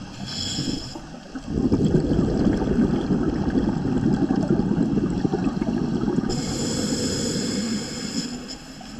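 Scuba diver breathing out through a regulator underwater: a long stream of exhaust bubbles bubbling loudly for about six seconds, starting about a second and a half in.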